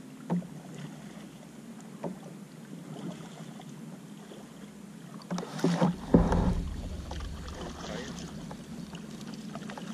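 Light knocks on a plastic sit-on-top fishing kayak, with a louder cluster of knocks and a low thump about six seconds in as a fishing rod is picked up and handled.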